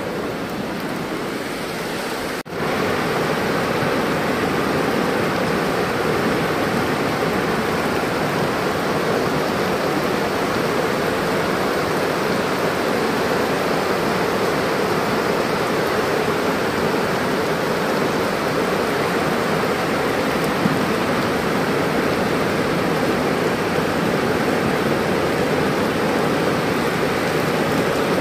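Muddy flash-flood torrent rushing in heavy rain after a cloudburst, a loud steady noise of water. It drops out for an instant about two and a half seconds in, then goes on steady and louder.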